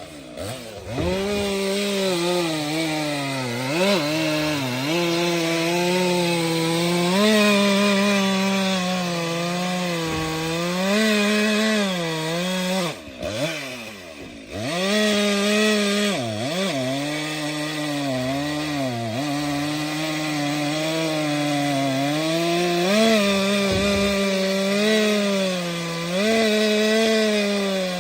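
Stihl MS 462 C-M two-stroke chainsaw cutting firewood at high revs, its pitch sagging and recovering as the chain bites into the wood. About halfway through, the engine drops sharply toward idle, then revs back up into the next cut.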